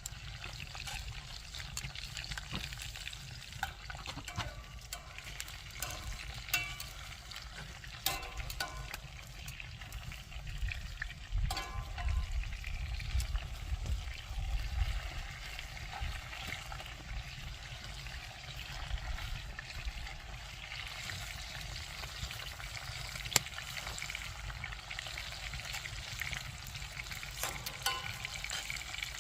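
Flour-coated venison cubes frying in a cast iron pan over a campfire: a steady sizzle, with scattered clicks and scrapes of a utensil stirring the pan. A low rumble runs underneath.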